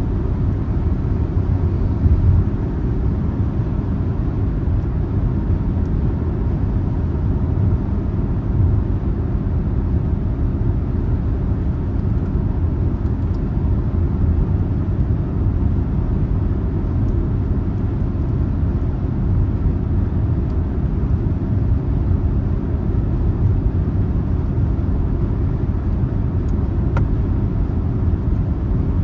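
Steady low rumble of a car on the move, engine and tyre noise running evenly.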